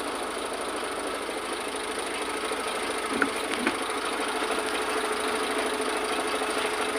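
Concrete pump truck's engine running steadily, with a constant hum and two faint clicks about halfway through.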